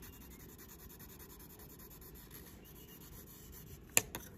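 Faint, steady scratching of a graphite pencil shading on paper, held slanted nearly flat against the sheet. Two short sharp clicks about four seconds in.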